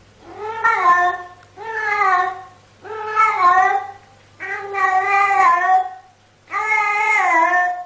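Domestic cat meowing five times in a row, each meow long and drawn out, about a second apiece with short pauses between, the last one the longest.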